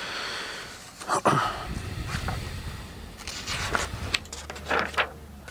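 Wires and small connectors being handled and moved around a 3D printer's control board: irregular rustling with a sharp click about a second in and several short scrapes and taps near the end.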